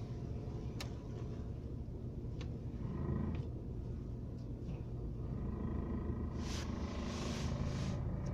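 Chevrolet Rezzo running with a steady low rumble and a few sharp knocks: an unexplained knock whose source the owner is trying to find.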